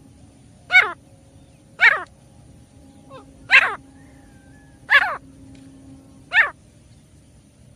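Grey francolin calling: five short, loud notes, each sliding downward in pitch, repeated about every one to one and a half seconds over a faint steady background tone.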